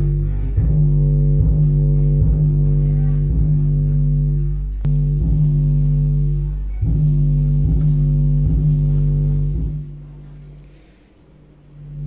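A song played loudly through a loudspeaker driven by an LA4440 amplifier IC board in a sound test: heavy, sustained bass notes with a steady beat about once a second. The music drops away sharply near the end.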